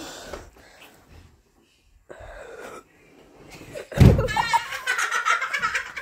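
A loud thump about four seconds in, followed at once by a child's high-pitched wailing cry.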